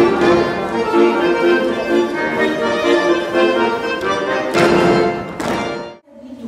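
Instrumental music that cuts off abruptly about six seconds in.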